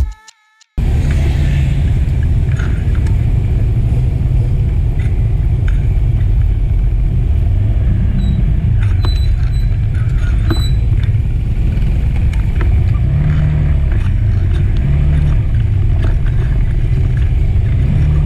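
Motorcycle on the move: a steady, loud low rumble of engine and wind noise on the microphone. It cuts in suddenly about a second in, after a short silence.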